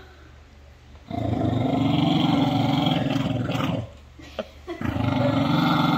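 Corgi growling low at a larger dog, a warning growl in defence of baby squirrels beside her: one long growl starting about a second in, then another after a short pause.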